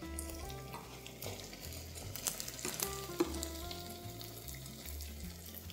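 Paneer pakoda frying in oil in a pan: a steady, quiet sizzle, with a few light clicks as the pieces are worked with a slotted spoon.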